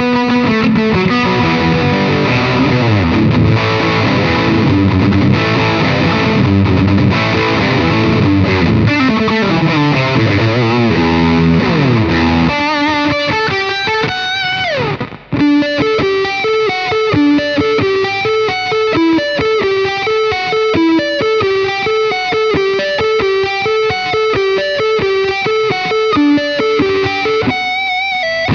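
Electric guitar played through a Caline Jaguar Classic High Gain Distortion pedal set for a classic high-gain tone. For about the first twelve seconds it plays thick distorted chords. About halfway through there is a quick downward slide and a brief drop in level, then a rhythmic single-note riff to the end.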